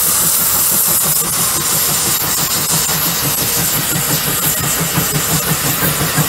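Case 150 steam traction engine working under load pulling a plow: a steady hiss of steam with rhythmic exhaust chuffs from the stack, the beat becoming more distinct in the second half at about three chuffs a second.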